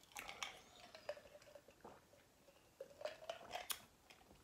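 Faint sipping and swallowing sounds from drinking out of a glass mason jar, small wet clicks in two short runs, the second about three seconds in.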